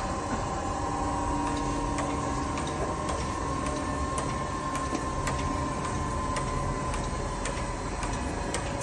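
KENT surface grinder running: a steady machine hum with a held whine, broken by frequent, irregular sharp ticks.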